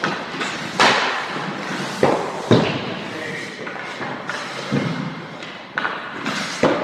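Hockey pucks being shot with a stick and striking the goalie's blocker and pads: about half a dozen sharp knocks and thuds, echoing in the rink.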